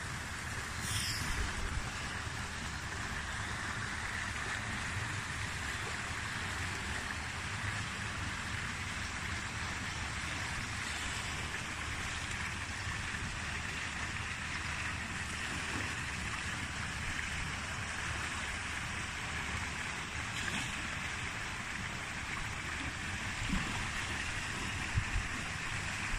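Steady rush of running water in a seal pool, with a few soft low bumps near the end.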